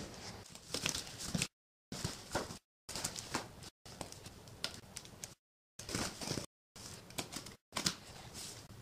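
Rustling and crinkling of paper and cardboard as a taped cardboard box is handled and its packing tape is cut, with sharp clicks and scrapes, in short stretches that cut off abruptly into dead silence several times.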